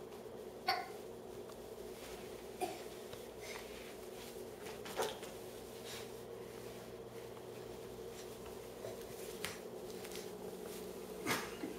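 A steady low room hum, broken by about half a dozen short, soft sounds from a toddler moving about and dropping to a tile floor.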